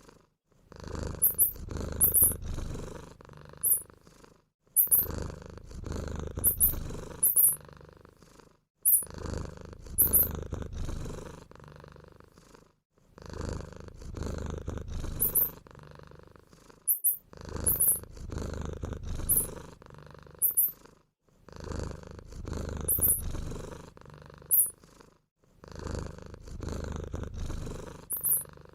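Domestic cat purring, a low rumble in stretches of about three to four seconds with brief breaks between them. Short, very high-pitched squeaks come two or three times in each stretch.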